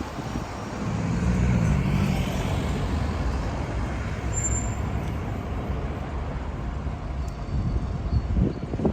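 Low motor engine rumble with a pitched engine hum about a second in, over outdoor background noise; gusts of wind buffet the microphone near the end.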